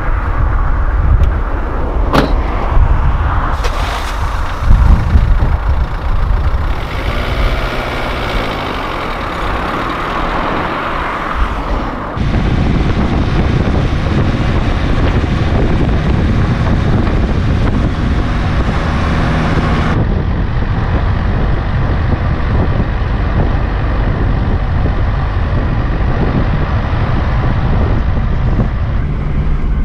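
A small hatchback driving on asphalt: a steady rumble of tyres and road with the engine's low hum, heard close to the front wheel. Before that, gusty wind rumble on the microphone with a single sharp knock about two seconds in.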